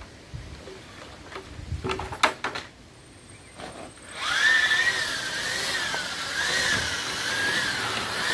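A few short knocks and scrapes, then about four seconds in an electric drill with a mixing paddle starts up in a bucket of concrete and runs steadily. Its motor whine wavers up and down in pitch as the paddle churns the mix.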